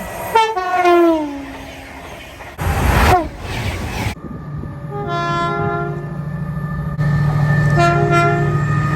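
Train horns in separate clips. First a horn chord sounds and falls in pitch as the train passes, followed by a brief rush of passing noise. Then a two-tone horn sounds its two notes over a steady low drone, around five seconds in and again near the end.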